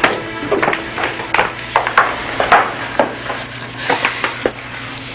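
Footsteps of hard-soled shoes on wooden stairs and floorboards, several people walking: a dozen or so uneven knocks that stop about half a second before the end.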